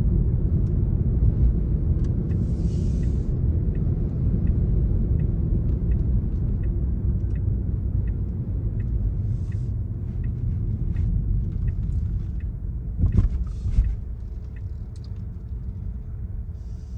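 Tyre and road rumble inside the cabin of an electric 2021 Tesla Model Y, with the turn signal ticking about once every two-thirds of a second. A couple of thumps come about thirteen seconds in, and then the rumble drops as the car slows.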